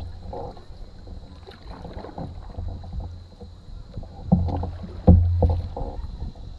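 Canoe being paddled: paddle strokes splashing and water rushing along the hull over a steady low rumble, with two sharp knocks about four and five seconds in.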